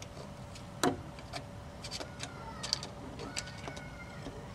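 A metal tool clicking against parts inside an open rear differential as they are picked and pried at, with one sharp metallic click about a second in and scattered lighter clicks after it.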